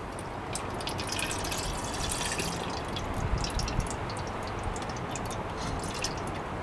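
Water being poured into a Kelly Kettle's double-walled water jacket, a steady trickling, splashing pour.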